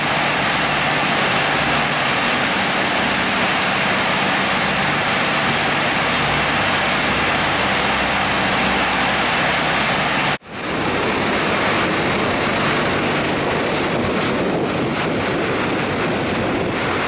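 Dive boat under way at speed on open sea: a steady engine drone beneath loud wind and rushing water noise. The sound breaks off for an instant about ten seconds in, then carries on.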